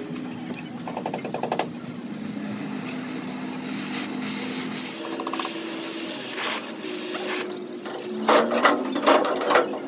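Oxy-fuel gas torch flame hissing steadily as it is held on the seam of a steel plate. Near the end comes a burst of sharp metallic knocks and clinks.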